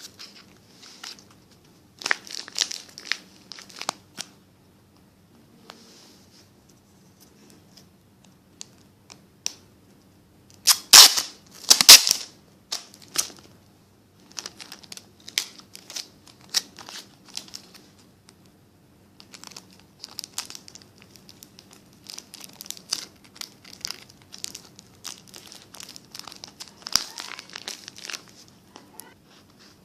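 Paper crinkling and rustling as it is handled, in irregular bursts, loudest about eleven to twelve seconds in.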